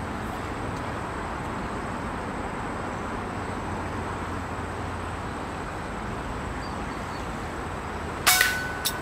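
Steady hiss of outdoor background noise, then about eight seconds in a single sharp shot-like crack with a brief ringing tone after it, followed by a fainter click.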